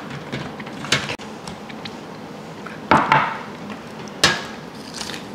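Hot glass mason jars clunking against an enamel roasting pan and being set down on a wooden cutting board as they are lifted out of their water bath: three sharp knocks a second or so apart.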